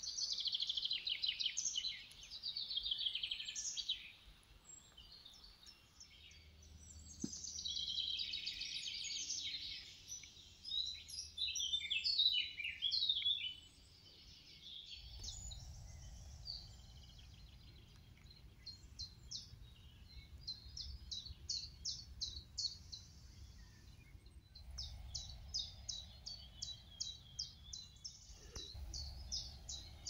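Songbirds singing: rapid trilled phrases in the first half, then short high notes repeated several times a second from about twenty seconds in, over a low background rumble.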